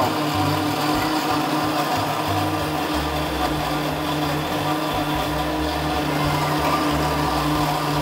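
Hamilton Beach Eclipse commercial blender running steadily at high speed, blending ice and milk into a frappé, with a constant whirring hum. Its sound-dampening enclosure keeps the noise down.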